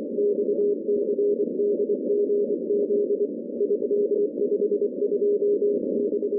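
Morse code (CW) signal on about 1724 kHz heard through a shortwave SDR receiver in CW mode: a single steady tone keyed into dots and dashes over a narrow band of receiver hiss. It sends groups of an unidentified encoded message.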